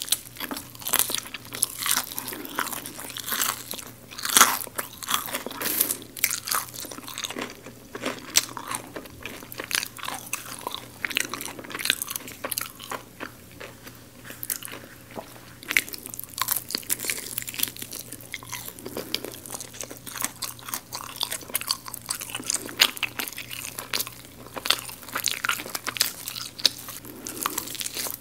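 Close-miked biting and chewing of crispy-coated garlic fried chicken: dense, irregular crunching of the breading, with a quieter stretch about halfway through.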